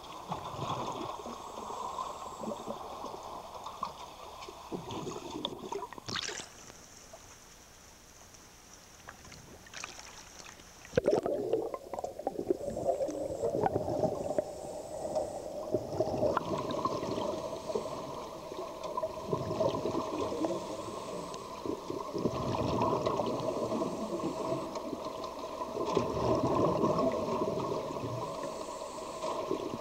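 Muffled underwater sound from a scuba diver's camera: regulator breathing with swells of exhaled bubbles every few seconds, over a steady hum. It is quieter for a few seconds in the first half, then comes back suddenly and loud.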